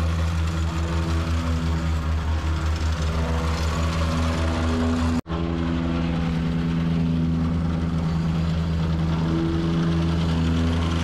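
Vibratory plate compactor's small gas engine running steadily at working speed, with a fast pulsing from the vibrating plate as it compacts a sand base. The sound drops out for an instant about five seconds in.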